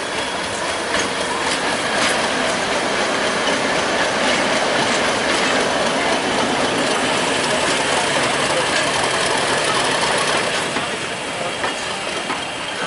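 British Rail Class 50 diesel-electric locomotive 50035 pulling away under power as it passes close by, its English Electric 16-cylinder engine running with the clatter of wheels over the rails. The sound eases near the end as the locomotive draws away and the coaches roll past.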